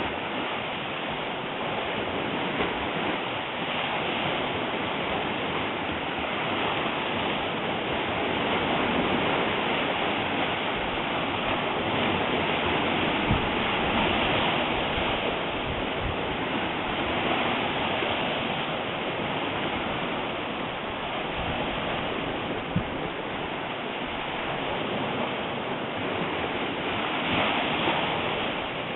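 Steady rushing noise that swells and fades slowly, with a few faint clicks.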